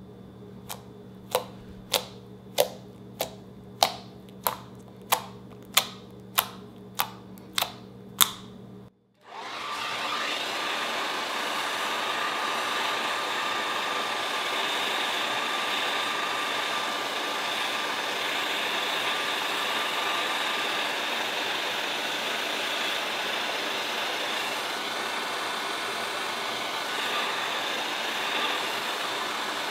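About a dozen sharp, sticky pops, under a second apart, as fingertips poke into a flat sheet of slime. After a brief break, a hair dryer blows steadily on the slime to heat it.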